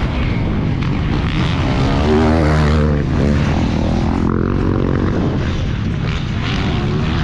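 Motocross bike engines revving on a race track, pitch climbing about two seconds in and falling off a second later.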